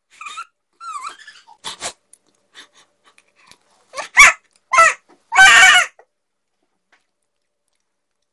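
A man whimpering and squealing in short high yelps, then two sharp cries and a loud half-second scream about five and a half seconds in: his reaction to the intense sourness of a Super Lemon candy.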